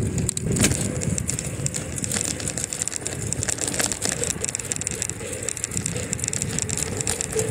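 Bicycle rattling, with frequent small clicks over a steady low rush.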